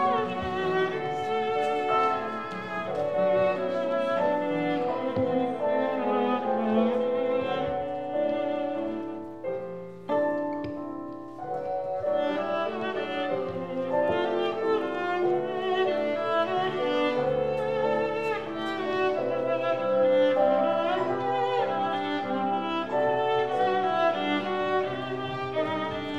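Instrumental music with sustained, wavering melody lines in the manner of bowed strings, accompanying a stage dance; it thins out briefly about ten seconds in.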